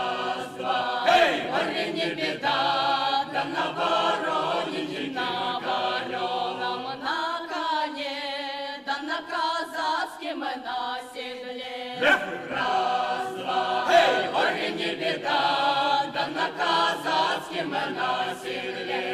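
A folk ensemble's choir singing together, several voices at once, in sustained sung phrases.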